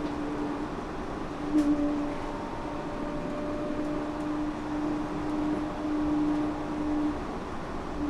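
Yurikamome rubber-tyred automated train running between stations, heard from inside the car: a steady motor hum with tyre and running noise, and one short knock about one and a half seconds in.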